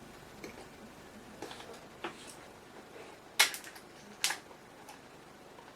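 A few light, sharp clicks and taps of tablet parts being handled as a replacement digitizer's flex cable is threaded through, the two loudest about three and a half and four and a quarter seconds in.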